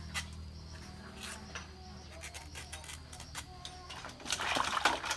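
Cleaver blade tapping and scraping against a fresh bamboo shoot as it is pared, a series of light knocks. Near the end, water splashes in a metal bowl as the shoot is put in to wash.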